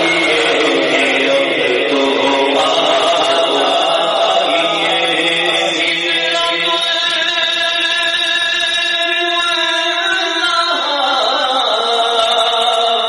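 A man singing a naat, an Urdu devotional song in praise of the Prophet, into a microphone, holding one long note for about four seconds in the middle before the melody moves on near the end.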